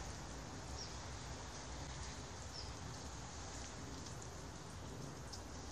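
Steady outdoor hiss in a snowy yard, with a few faint, short, high chirps and light ticks scattered through it.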